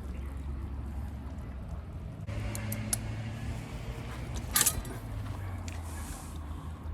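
A few light metallic clinks, the loudest about four and a half seconds in, over a steady low hum.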